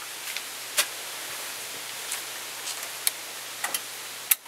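Steady background hiss with a handful of light, sharp clicks scattered through it; the engine is not yet running.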